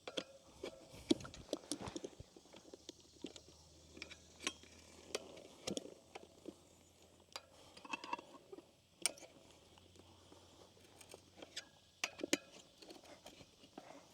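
Metal tyre spoons clinking and scraping against a spoked motorcycle wheel rim as the tyre bead is levered on, in irregular sharp clicks and knocks.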